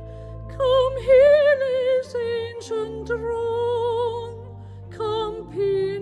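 A woman singing a carol solo with vibrato over steady, sustained accompaniment chords, pausing briefly for breath near the start and dropping softer a little before the end.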